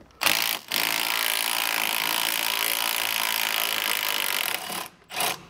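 Compact cordless impact wrench running on an 18 mm strut-to-knuckle bolt: a short burst, then about four seconds of steady running, then another short burst near the end. It is breaking loose a Loctited, corroded bolt.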